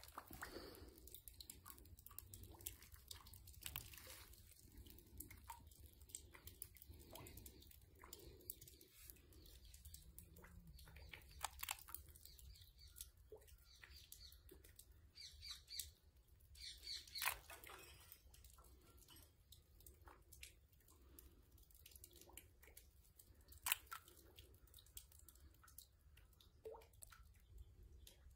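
Near silence: faint outdoor ambience with scattered small clicks and ticks.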